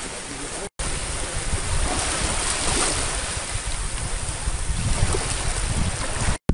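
Wind buffeting the microphone over the wash of small waves in shallow sea, with a brief dropout about three quarters of a second in.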